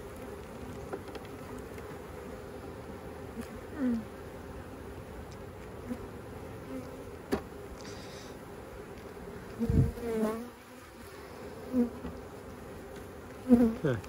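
Honey bees buzzing over an open hive: a steady hum from the colony, with single bees flying close past several times, each buzz swelling briefly and sliding down in pitch, loudest near the end. A single light click about seven seconds in.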